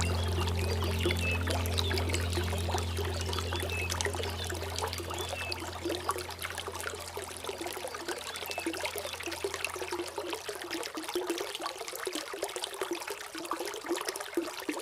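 Water flowing and trickling steadily, like a small stream pouring over stones. A low sustained musical drone underneath fades out over the first half or so, leaving the water on its own.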